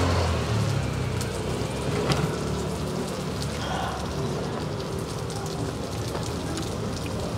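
Gopchang sizzling on a tabletop grill pan: a steady frying hiss, with a few light clicks.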